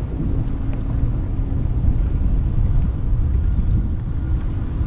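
Wind buffeting the microphone: a steady, loud low rumble, with a faint steady hum underneath.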